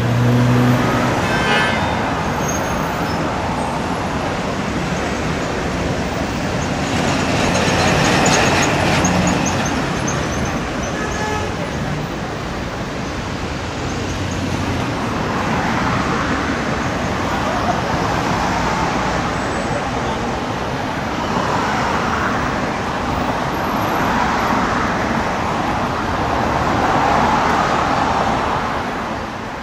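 Steady traffic noise of a busy city avenue: engines and tyres of passing cars, taxis and a pickup-based tow truck towing a car.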